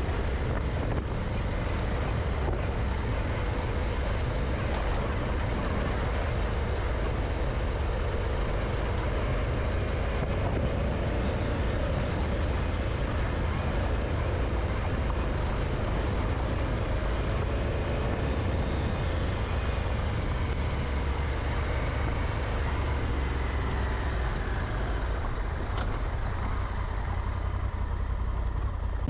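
Honda Africa Twin motorcycle engine running steadily at cruising pace on a dirt track, with heavy wind buffeting on the microphone.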